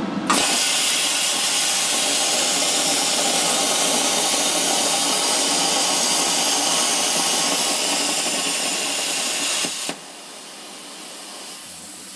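Plasma cutter torch on the Arcdroid robot arm cutting steel plate: the arc's loud steady hiss starts at once, runs for about nine seconds and cuts off suddenly, leaving a quieter hiss.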